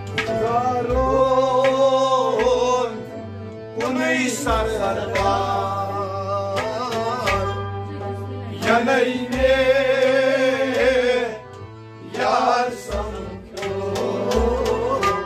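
Sufi kalam sung by a male voice in long, wavering phrases with short breaks between them, over the held chords of a hand-pumped harmonium.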